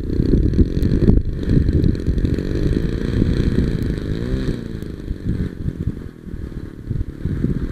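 Heavy wind rumble and buffeting on the microphone, with a radio-controlled Yak 55 model plane's petrol engine running underneath, its pitch rising and falling around the middle as the throttle changes.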